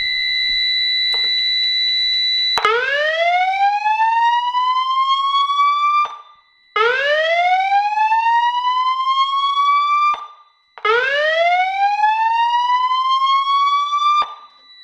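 Federal Signal 300GC-X fire alarm siren sounding a repeating rising wail. Each sweep climbs from a low to a high pitch over about three and a half seconds, then cuts off; three full sweeps are heard, the first after a steady high tone that lasts a couple of seconds.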